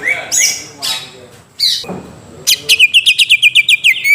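Cucak ijo (greater green leafbird) singing: a few sweeping whistled notes, then from about halfway a fast run of short repeated notes, around eight a second.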